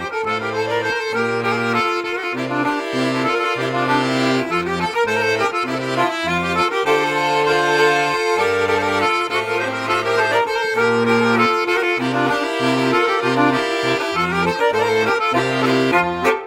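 Background music: a traditional folk tune played on accordion, with sustained melody notes over a bass line that steps from note to note.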